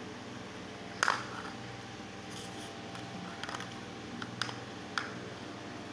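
Plastic toy trucks being handled: a few sharp clicks and knocks, the loudest about a second in and others near the end, over a steady low hum.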